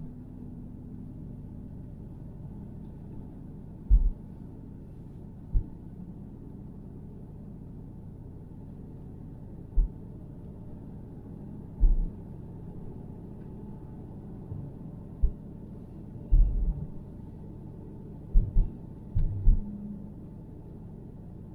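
Steady low rumble of a car driving, heard from inside, broken by about ten short low thumps at irregular intervals, several close together near the end.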